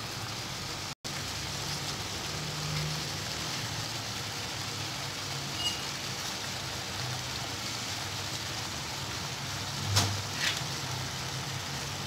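Steady sizzle of vegetables frying in oil in a large pan, with a few light knocks as potato slices are laid into the pan, the loudest about ten seconds in. The sound cuts out for an instant about a second in.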